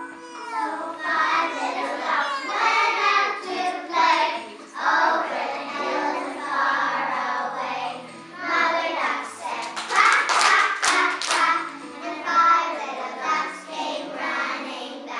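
A class of kindergarten children singing a song together, with a few sharp claps about ten seconds in.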